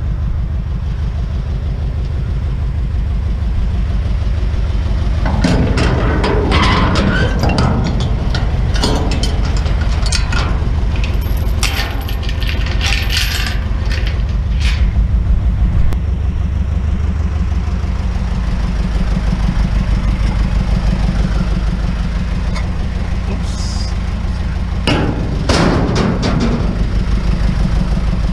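A truck engine idling steadily, with bursts of clattering and knocking from scrap items being handled, from about five seconds in to about the middle and again briefly near the end.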